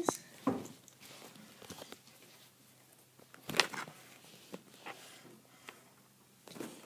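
Scattered light clicks and taps of a small driver and screws being worked out near the spur and pinion gears of a Traxxas Slash 2WD RC truck, with a sharper click about three and a half seconds in.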